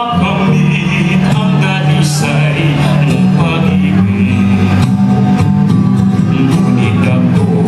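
A man singing into a microphone, accompanied by a guitar, holding long notes.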